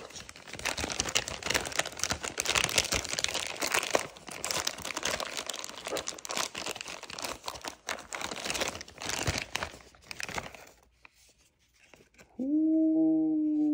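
Clear plastic bag crinkling and rustling as a pistol is worked out of it, for about ten seconds, then stopping. Near the end comes one long, held 'ooh'-like vocal tone.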